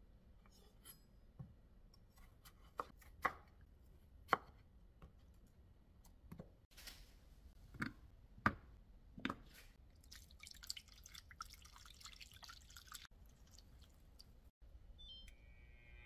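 Wet peeled potatoes set down into an empty nonstick pan: several soft knocks with dripping water, then a few seconds of water splashing into the pan.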